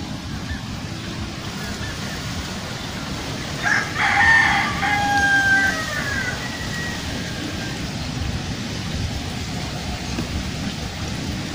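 A rooster crows once, about four seconds in, for a couple of seconds, ending on a falling note. A steady low background rumble runs underneath.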